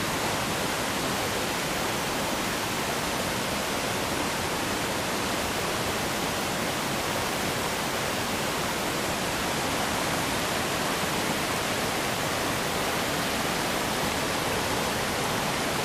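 Rocky stream rushing over boulders and through small rapids: a steady, even rush of water.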